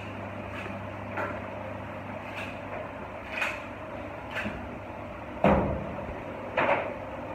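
Short knocks and thuds from a large sturgeon being handled and cut on a cutting board, about six of them, the loudest about five and a half seconds in, over a steady low hum.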